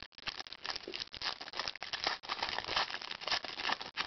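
Foil wrapper of a football trading-card pack crinkling as it is opened by hand: an irregular run of small crackles.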